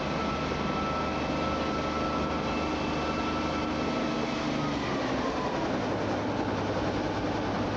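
Helicopter engine and rotor running on the ground with a steady whine, its pitch starting to fall about four to five seconds in as it begins to wind down.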